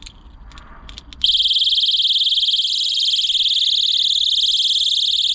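Personal safety alarm on a key ring sounding a loud, high-pitched electronic shriek. It starts abruptly about a second in, after a few small handling clicks, holds steady, and cuts off suddenly near the end.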